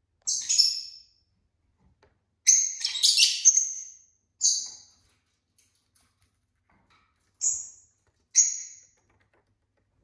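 Lovebird chirping in short high-pitched calls: one call near the start, a quick run of several about two and a half seconds in, then three more single calls spaced through the rest.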